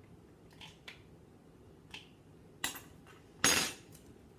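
A spoon and food containers being handled: a few light clicks and knocks, a sharper knock past the middle, and a louder, brief noise about three and a half seconds in.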